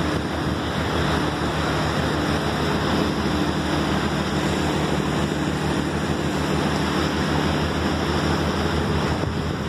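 Motorboat under way: a steady engine hum beneath a constant rush of wind and water along the hull.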